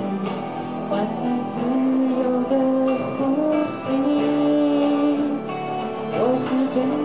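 A woman singing a slow song into a microphone over karaoke backing music, holding long sustained notes.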